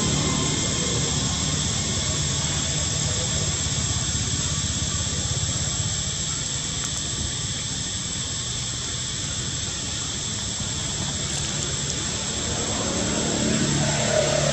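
Steady outdoor background rumble and hiss, with a thin high steady whine over it; a low pitched hum comes up again near the end.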